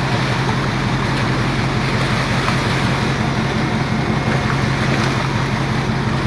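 Purse-seine fishing boat's diesel engine running steadily with a low hum, under a constant rush of wind and sea noise.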